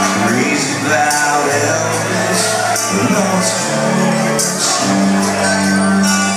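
Live rock band playing loudly, with guitars, bass and drums with cymbal or tambourine strokes, and a voice singing over them.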